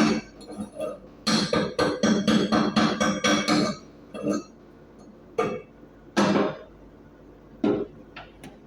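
A hammer striking steel plate with a ringing, metallic sound: a fast run of about five blows a second, then a few single blows spaced out.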